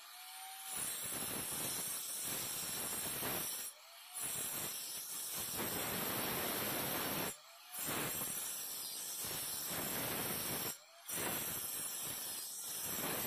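Electric angle grinder with a cutting disc cutting into brick, chasing a groove in the wall for concealed wiring conduit. A steady, harsh grinding hiss that breaks off briefly four times, each time picking up again with a short rising whine from the motor.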